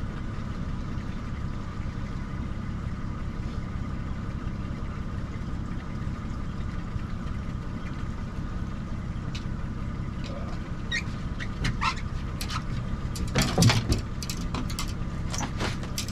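Small outboard motor running steadily at slow trolling speed, a low hum. About two-thirds of the way through, scattered clicks and knocks begin, with one louder knock near the end.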